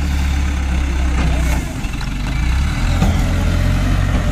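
Diesel engine of an ACE pick-and-carry crane running loud and steady under load as it lifts an overturned lorry; its note shifts about halfway through.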